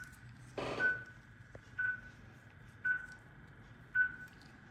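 Anaesthetic monitor beeping steadily, one short high beep just under once a second, in time with the anaesthetised dog's pulse. A brief rustle of handling just under a second in.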